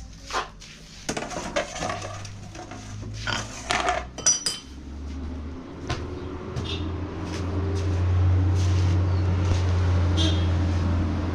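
Scattered clinks and knocks of hard objects being handled, like dishes or metal. From about six seconds in, a steady low hum builds and holds.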